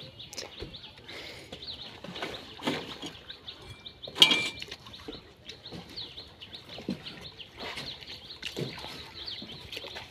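Small birds chirping repeatedly, with scattered splashes and knocks from wading through water and handling a ring net beside a wooden boat. A sharper, louder knock or splash comes about four seconds in.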